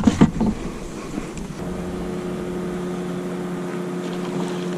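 A steady mechanical hum, one low tone with overtones, sets in about a second and a half in and holds level, after a short stretch of uneven rustling.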